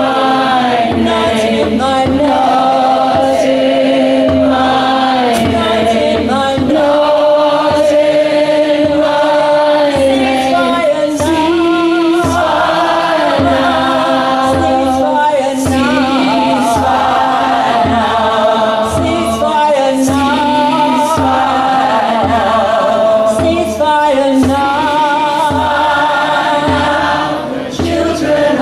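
A large group of women singing together outdoors, unaccompanied, holding long notes that move slowly from one pitch to the next.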